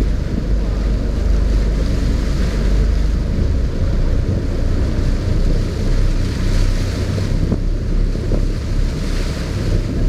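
Wind buffeting the microphone steadily over the rush of choppy waves, heard from a boat at sea.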